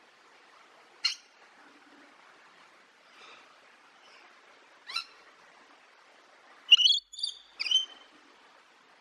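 A parrot calling in short, sharp squawks: one about a second in, another about five seconds in, then a quick run of three louder calls near the end.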